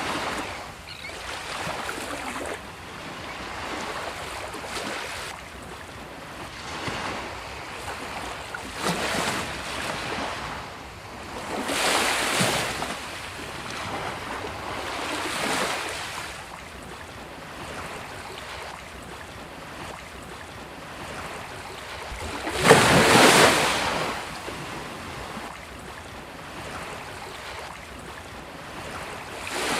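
Sea waves breaking and washing up a beach, surges swelling and fading every few seconds over a steady hiss of surf. One wave breaks noticeably louder a little past two-thirds of the way through.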